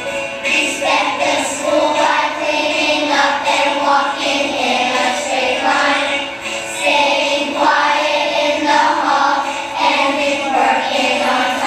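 A group of young children singing a song together, with musical accompaniment.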